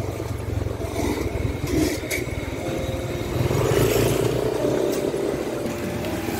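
Motorcycle engine running steadily while riding slowly along a street, with street noise around it.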